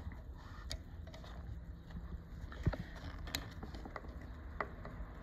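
A screwdriver working the presser-foot screw of an industrial sewing machine to change the foot: a few scattered light metal clicks and taps, the sharpest about halfway through, over a low steady hum.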